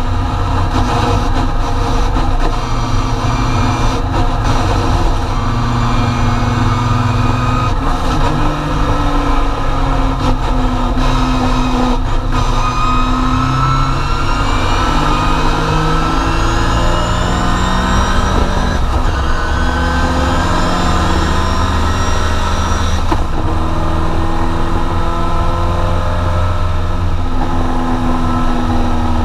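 Triumph TR4 race car's four-cylinder engine heard from inside the cabin, running hard under racing load: its pitch climbs steadily and drops back sharply at each of several upshifts.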